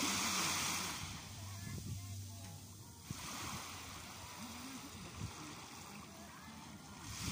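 Small sea waves breaking and washing up on the sand at the shoreline, a surge of hiss about every three to four seconds, the first the loudest. Faint voices are heard in between.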